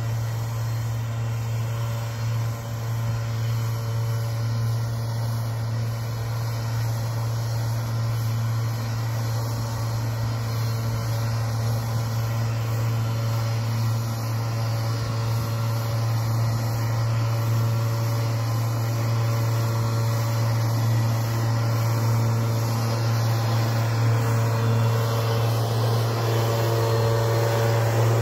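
Small engine of a backpack power sprayer running at a steady speed while it blows pesticide spray over a potato crop, a constant drone that grows louder near the end.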